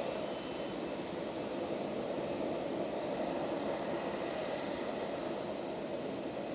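Jet airliner engines running steadily as the aircraft taxis on the runway, a continuous even noise that swells a little midway.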